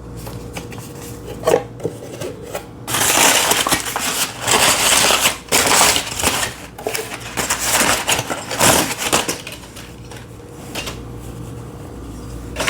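Packaging being unwrapped by hand, crinkling and rustling in bursts for several seconds, with a few small knocks before it starts.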